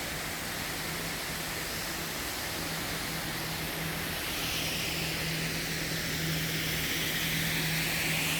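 Waterfall rushing: a steady hiss of falling water that grows a little louder about halfway through, with a steady low hum underneath.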